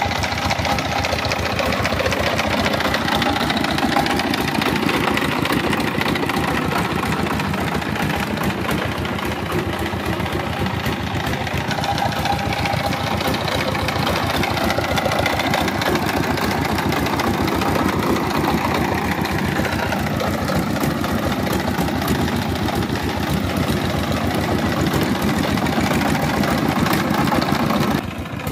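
Single-cylinder diesel engine of a two-wheel power tiller running steadily as the tiller is driven along, with a fast even beat. It drops in level and sounds duller near the end.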